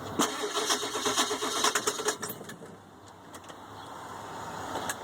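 Ford 7.3 L Power Stroke turbo diesel being cranked by its starter for about two seconds, a rapid chugging with a steady starter whine, then stopping: the engine does not start. A single click near the end.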